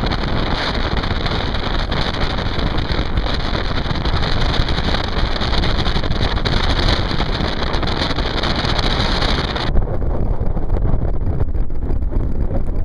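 Strong wind buffeting the microphone and water rushing along the hull of a small sailboat under sail. About ten seconds in, the high hiss drops away suddenly, leaving the lower rush.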